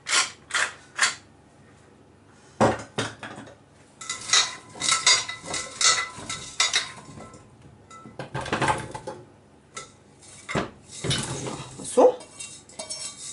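A hand pepper mill grinding in a few quick, even twists during the first second. Then potatoes and chopped vegetables knock and clatter in a stainless steel bowl as they are tipped into a roasting pan, with a loud clank of the metal bowl near the end.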